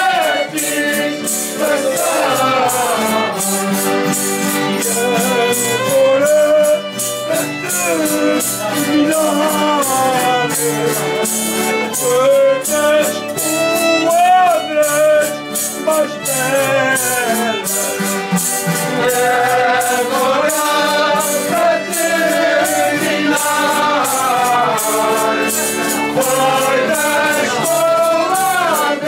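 An Azorean folia group singing a traditional folk song together, with a wavering melody line, over steady jingling percussion such as tambourines.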